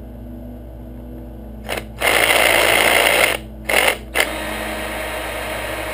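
Cordless drill-driver backing screws out of a motorcycle cylinder head: a short blip, the motor running hard for about a second and a half, two more short bursts, then running more quietly near the end.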